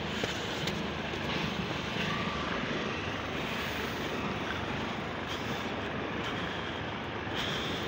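A train passing at speed, a steady rumbling rush of noise.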